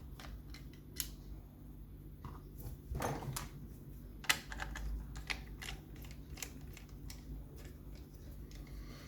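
Light scattered clicks and taps, with a short scrape about three seconds in, from an ERA Fortress lever mortice lock being handled and taken apart.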